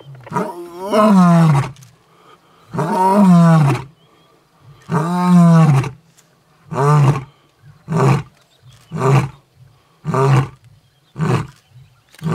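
Male African lion roaring at close range: three long, loud roars that fall in pitch, then a run of shorter grunting calls about one a second, the grunting end of a roaring bout.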